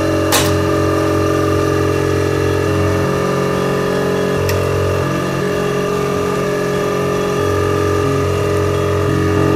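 Vacuum pump of a packaging leak tester running steadily, evacuating the test chamber, with a sharp click shortly after the start.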